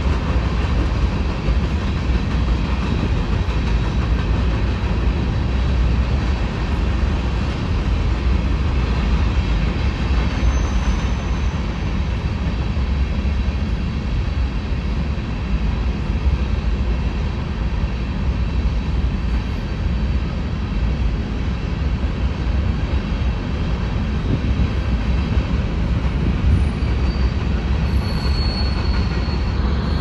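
Long freight train of covered hopper cars rolling past with a steady rumble of wheels on rail. A faint high wheel squeal comes through about ten seconds in and again near the end.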